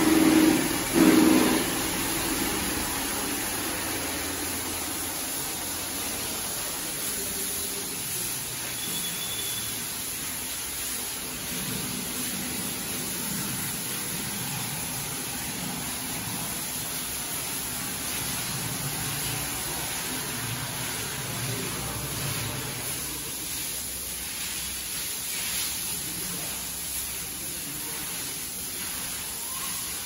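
Steady hissing background noise of a cattle shed, with two short louder sounds in the first second or so.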